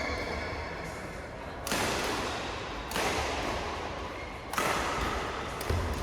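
Badminton rackets striking the shuttlecock in a rally: three sharp hits about a second or so apart, each ringing on in the reverberant hall.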